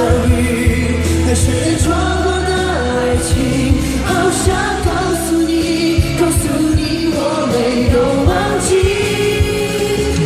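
Live pop ballad at a concert: singing over band backing with a heavy bass line and a regular drum beat.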